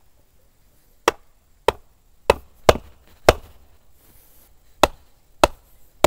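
A short log used as a mallet knocking a sharpened wooden stake into soft soil, wood on wood: seven sharp blows, a pause of about a second and a half after the fifth.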